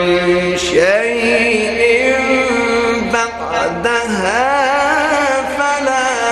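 A male Quran reciter chanting in the melodic mujawwad style, drawing out long, ornamented notes that waver and bend in pitch, with brief breaths between phrases.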